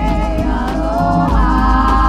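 Live music: a singer's held, wavering notes over a steady percussive beat and deep bass, the voice sliding up to a higher sustained note a little past halfway.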